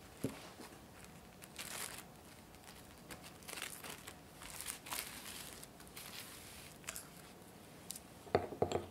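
Plastic cling wrap crinkling in scattered rustling bursts as it is stretched and pressed over a container. Near the end, a quick cluster of sharp knocks.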